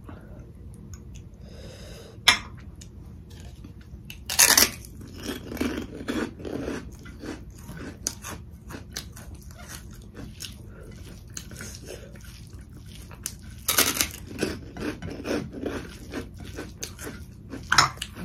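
Close-up eating sounds: two loud crunchy bites into raw cucumber, each followed by a couple of seconds of rapid crunchy chewing, with a sharp click a couple of seconds in and another crunch near the end.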